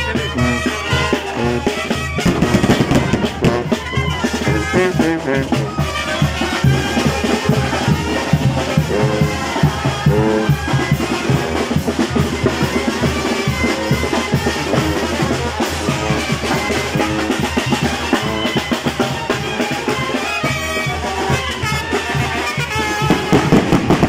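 Mexican brass band playing a lively tune: sousaphone bass line, saxophones and trumpets over a steady drum beat.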